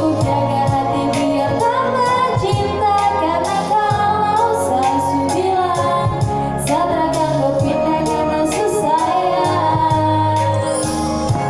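A female voice singing a pop song over a backing track of sustained keyboard chords and a steady drum beat.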